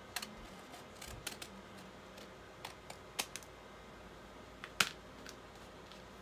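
A plastic screen-protector sheet being cut to length: a few sparse, sharp snips and clicks, the loudest one nearly five seconds in.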